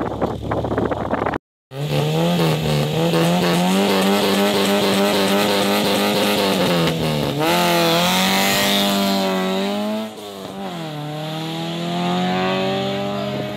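Rally car engine held at high revs on the start line, then launching. The pitch drops and climbs again about halfway through and again later as it changes gear, and the sound fades as the car pulls away.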